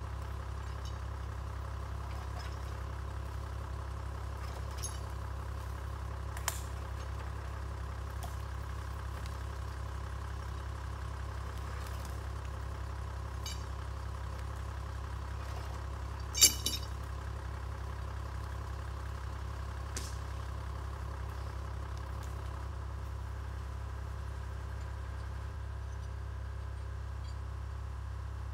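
Toyota Land Cruiser 80-series engine idling steadily while the vehicle stands ready to winch logs. There are a few light clicks and one sharp knock about halfway through.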